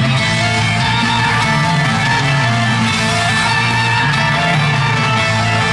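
Loud instrumental music with long held notes, steady in level throughout.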